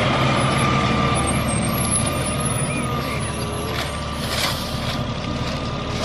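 Rear-loading garbage truck's diesel engine running steadily, with a steady high whine over it and a short burst of hiss and clatter about four and a half seconds in.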